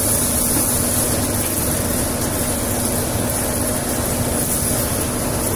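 Plastic bottle granulator running steadily: an even mechanical noise with a constant low hum and no separate knocks or bangs.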